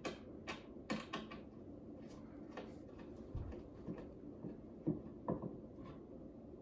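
Light, irregular clicks and knocks of flat-pack desk parts being handled and fitted together, with a soft thump about three and a half seconds in.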